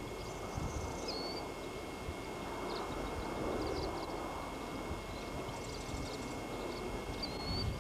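Outdoor ambience: a steady low rumble that swells about three to four seconds in, under a faint steady high tone, with a few short high bird chirps, including a quick upslurred note about a second in and another near the end.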